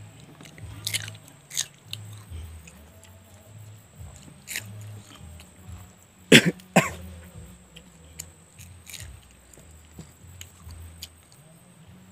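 Someone chewing and biting into raw green chillies, with scattered crunches and mouth sounds. Two sharp, loud sounds come close together about halfway through.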